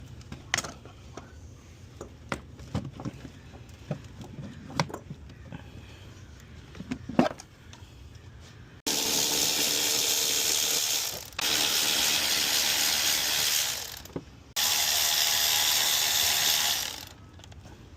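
Scattered light clicks and knocks of parts being handled, then a ratchet wrench running on a fastener in three long runs of a couple of seconds each, loud and dense, with short pauses between.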